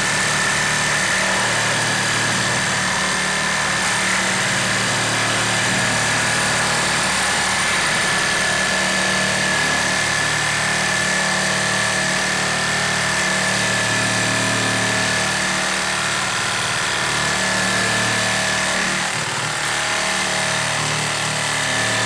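Makita 36-volt brushless reciprocating saw on its lowest speed setting, cutting through a metal pipe with an 18-teeth-per-inch blade that is dulling as it cuts. The motor and blade make a steady, loud run with a high-pitched tone held above it.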